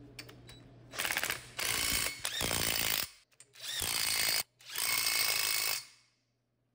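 DeWalt cordless impact driver hammering hex bolts down, in about four bursts of roughly a second each with a fast rattle, one after another as it moves from bolt to bolt on the pump's bearing cover.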